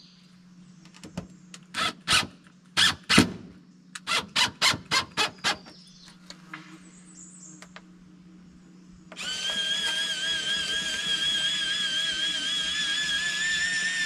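Cordless drill driving screws in short bursts, then, about nine seconds in, the electric motor of an automatic chicken coop door starts with a steady, slightly wavering whine as it raises the sliding door.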